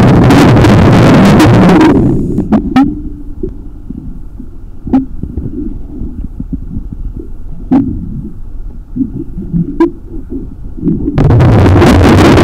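Underwater recording of a scuba diver's exhaled bubbles: a loud rumbling gurgle for about two seconds at the start and again from near the end, in a slow breathing rhythm. Between the exhalations there are quieter muffled water noise and a few sharp clicks and knocks.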